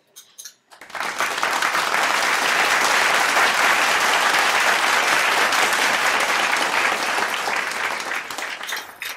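Theatre audience applauding, starting about a second in and tapering off near the end.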